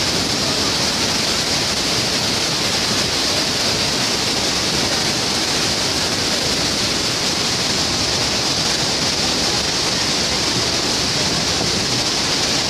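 Floodwater rushing and churning through the open spillway gates of an overflowing dam: a steady, unbroken rush of water with no pauses.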